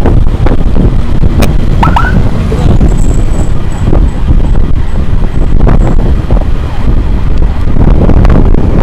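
Loud, steady wind and road rumble from a moving motorcycle in traffic, with a short rising chirp about two seconds in.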